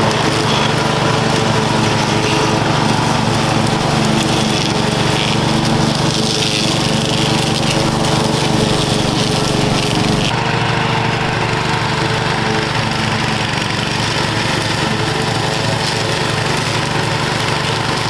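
Ride-on lawn mower's engine running steadily while it is driven slowly in first gear into overgrown brush. The sound changes abruptly about ten seconds in.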